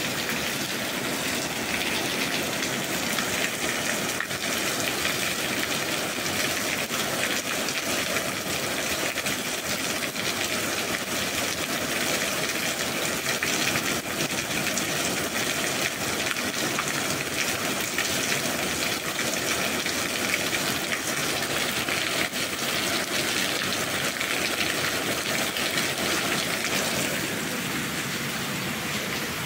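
Steady rain: an even, unbroken hiss of falling water.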